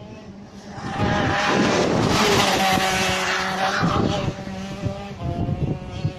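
Go-kart engine running at speed as the kart passes close by, loudest from about a second to four seconds in, then fading as it moves away.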